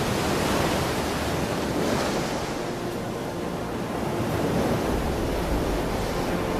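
Heavy surf: big waves crashing and breaking in a rough sea, with wind, a steady dense wash of water.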